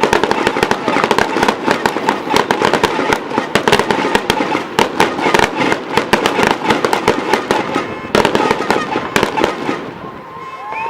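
Fireworks display in a rapid, dense barrage of bangs and crackles, many per second, thinning out and dying away near the end as a crowd begins to cheer.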